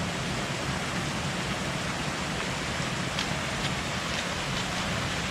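Steady rush of water spilling over a small dam below a waterfall, the river running high after heavy rain.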